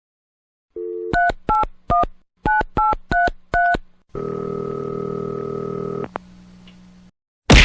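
Telephone dialing sound effect: a brief dial tone, then seven quick two-tone keypad beeps, then a steady line tone for about two seconds that cuts off with a click. A sharp hit comes at the very end.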